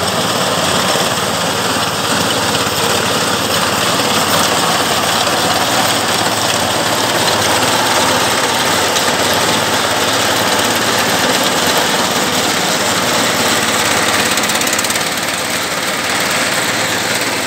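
Engine of a mini tractor running steadily while its front-mounted reaper cutter bar mows grass.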